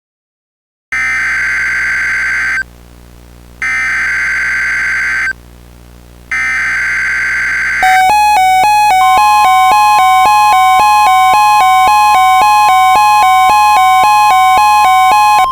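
Emergency Alert System broadcast tones: three buzzy bursts of SAME header data, then a loud attention signal that alternates between two pitches a few times a second, joined about a second later by a steady higher tone. These are the tones that open a new alert message.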